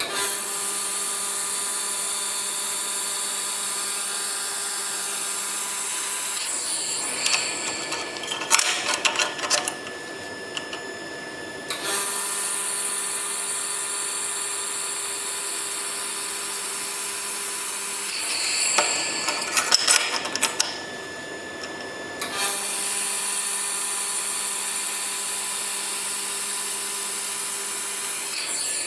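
Laser welder running on stainless steel: three steady runs of about six seconds each, an even hiss with a faint machine hum under it. Between the runs come stretches of clicking, rubbing and metal clatter as the parts are handled.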